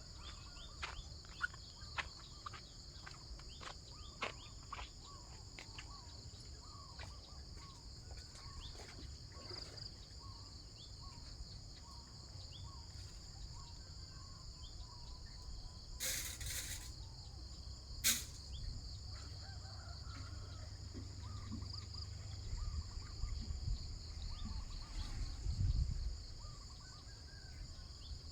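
Steady high-pitched insect chorus, crickets, droning in a field, with scattered sharp clicks during the first third and a brief burst of noise about two-thirds of the way through.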